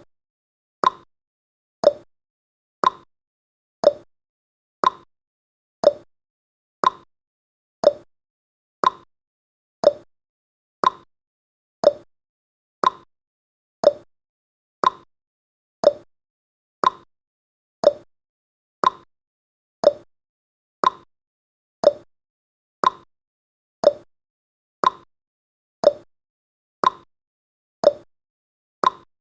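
Clock-style ticking of a countdown timer's sound effect: short, sharp ticks, one every second, evenly spaced with silence between.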